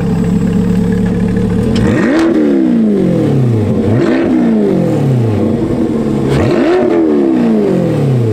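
2022 Chevrolet Corvette C8's 6.2-litre V8 through a Paragon Performance track exhaust, idling steadily and then revved three times in neutral. Each rev climbs sharply and falls back slowly to idle.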